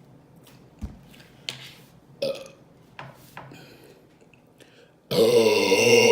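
A few faint clicks, then about five seconds in a woman lets out a loud, drawn-out burp.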